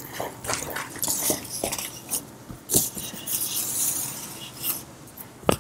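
Aluminium foil crinkling and a metal baking dish being handled, with scattered clicks and a sharper knock near the end.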